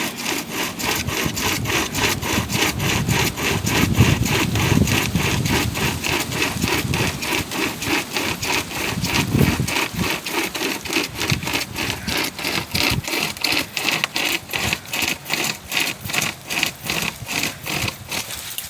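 Sumpri pocket chainsaw, a hand-pulled saw chain, cutting through a live tree limb in quick back-and-forth strokes, about three a second.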